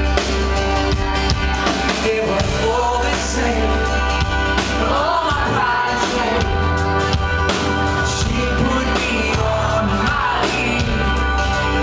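Live pop-rock band playing: a male lead singer sings over strummed acoustic guitar, drums and heavy bass.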